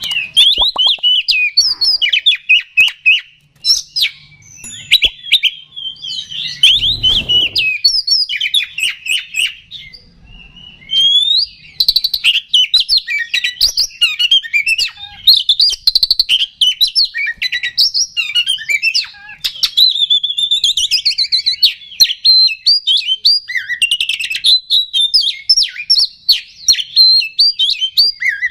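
Oriental magpie-robin (kacer) in full, agitated song: a loud, continuous string of fast, varied whistles and chattering notes, with short pauses about four and ten seconds in.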